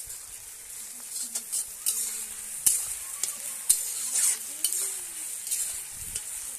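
Sliced onions sizzling in hot oil in a wok-shaped kadai, stirred with a metal spatula that scrapes and clicks against the pan every second or so.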